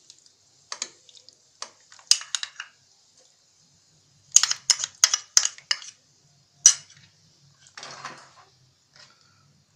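A metal spoon clicking and scraping against a plastic tub and the rim of a non-stick pan as milk cream (malai) is scooped out and knocked off into the pan. The clicks come in bunches, including a quick run of about six, and a short, softer scraping sound follows near the end.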